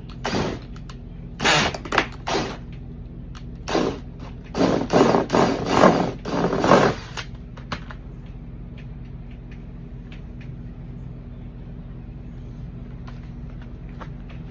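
Hand-tool work on a car's front end: a run of short ratcheting and scraping strokes in the first half, giving way to scattered light clicks, over a steady low hum.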